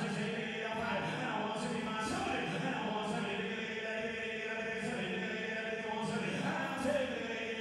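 Auctioneer calling bids in a continuous sing-song chant while live bidding climbs.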